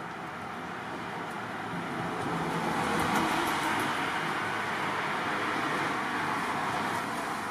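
Steady road-traffic noise, an even hiss with no distinct events, with a few faint clicks about three seconds in.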